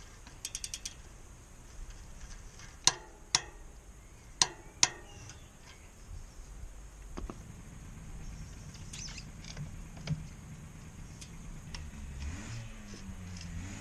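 Ratcheting torque wrench on a bicycle cassette lockring: a quick run of ratchet clicks, then four sharp, ringing metallic clicks in two pairs as the wrench reaches its set torque. Fainter knocks and handling noise follow.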